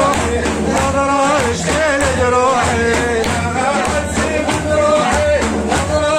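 Sufi devotional madih music: a wavering melodic line over a steady rhythm of hand-drum strokes.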